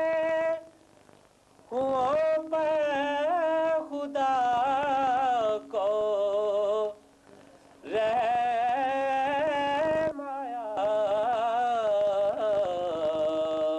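A man singing Urdu verses, probably a naat (devotional poem), with long held notes that waver in ornament. He sings several phrases with short pauses between them.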